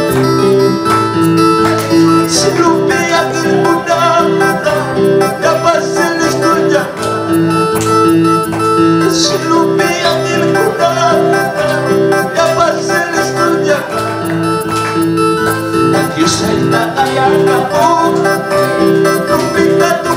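Electronic keyboard playing a continuous instrumental tune over a pulsing bass line.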